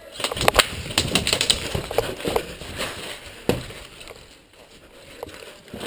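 Running footsteps crunching on leaf-strewn ground, with an airsoft rifle and kit knocking and rattling, in an irregular flurry of knocks that is loudest in the first half and thins out after a sharp knock about three and a half seconds in.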